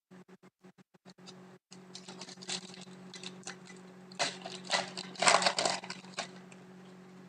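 Crackling, rustling handling of hockey card packs and cards, loudest in a burst around five seconds in, over a steady low hum.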